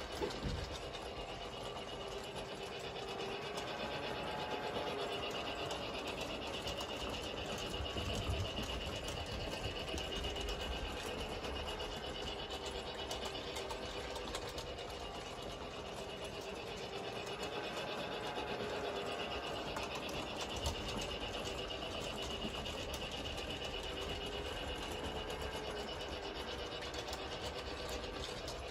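Small electric motor of a battery toy train whirring steadily as it runs round a plastic track, getting a little louder and softer as it passes nearer and farther away.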